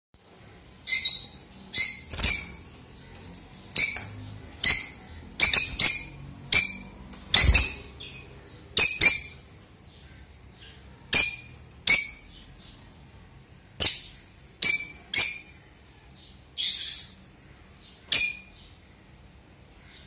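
Lutino peach-faced lovebirds giving about twenty short, high-pitched chirps, roughly one a second and sometimes in quick pairs, stopping about two seconds before the end.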